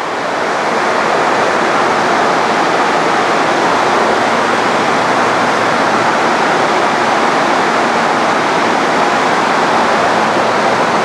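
Forrest Manufacturing Model 230 vertical bandsaw running free with no cut, its high-speed 3/4-inch scallop-edge knife blade and wheels giving a steady, even rushing noise.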